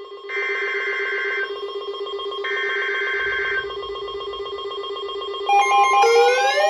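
Emergency Alert System SAME header data bursts: two one-second bursts of two-tone digital screech a second apart, over a steady fast-pulsing ring-like tone. Near the end a steady two-tone attention signal starts, and a rising siren-like wail begins over it.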